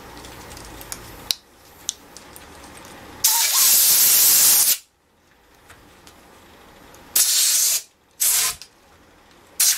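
Compressed-air blow gun hissing in four blasts, one long blast of about a second and a half, then three short ones near the end, blowing air under a foam handlebar grip to expand it so it slides onto the bar.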